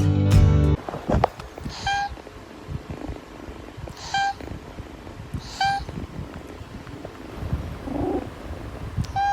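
A domestic cat purring close to the microphone, with four short, high mews or chirps at uneven intervals. A few notes of background music end just under a second in.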